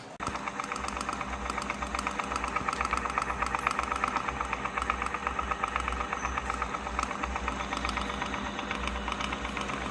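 Electric ceiling fan running with a steady motor hum and a rapid fine ticking.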